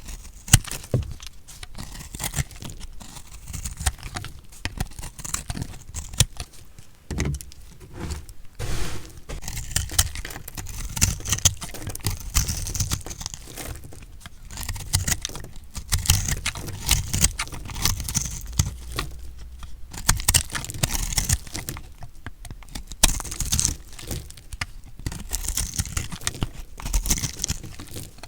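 Recycled soap being cut, a dense, irregular run of crisp crunching and crackling, broken by a few short pauses between cuts.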